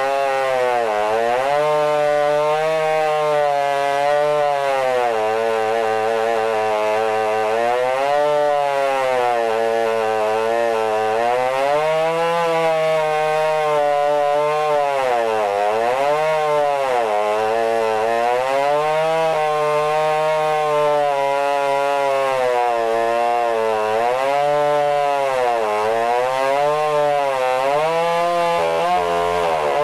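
Modified Stihl MS661 two-stroke chainsaw running at full throttle while ripping a slab lengthwise through a log in a chainsaw mill. The engine pitch dips and recovers every few seconds under the load of the cut.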